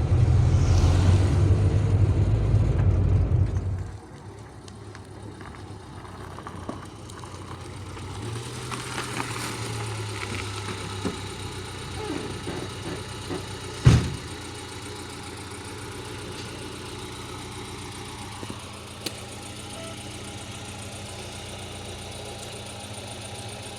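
Car engine running with a loud low rumble for about four seconds, then a quieter steady idle. There is a single sharp knock about fourteen seconds in.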